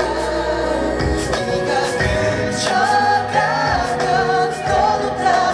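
Male pop vocalists singing live into handheld microphones over a backing track with bass and light drums, amplified through a concert sound system.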